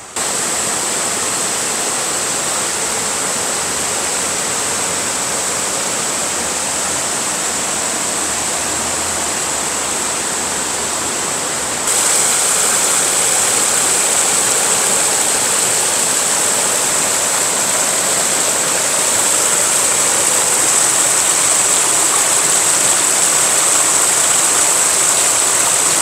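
Steady rush of a mountain stream flowing over rocks. It gets a little louder and brighter suddenly about halfway through.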